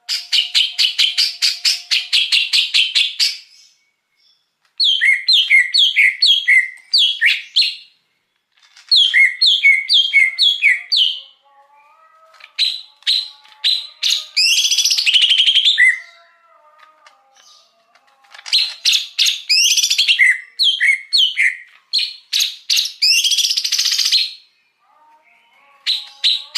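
Green leafbird (cucak hijau) singing: about six loud phrases of rapid chattering trills and whistled notes, separated by short pauses of a second or two.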